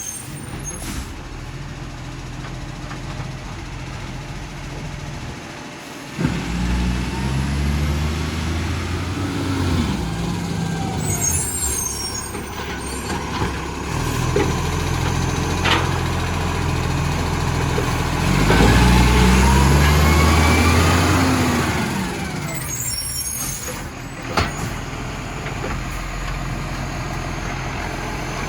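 Rubbish truck's diesel engine running, revving up about six seconds in and again for several seconds in the second half, through a leaking exhaust. Air brakes hiss briefly twice.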